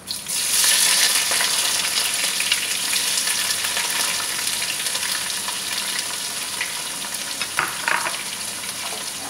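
Sliced onions going into hot cooking oil in a pot: a sudden loud sizzle as they hit the oil, settling into a steady frying hiss that slowly fades, with a few light clicks near the end.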